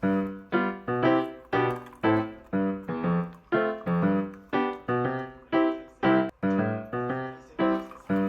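Background piano music: a melody of single struck notes at a steady pace, about two a second, each ringing and fading before the next.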